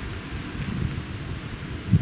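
Wind gusting against the microphone: an uneven low rumble that builds from about half a second in, over a steady hiss.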